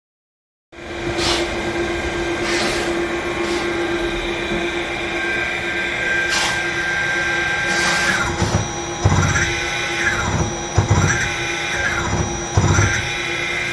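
Fanuc A06B-6120-H075 power supply test rig switching on less than a second in, then a steady machine hum with a held tone and a few clicks. From about eight seconds in, a whine rises and falls three times, each with a low thump.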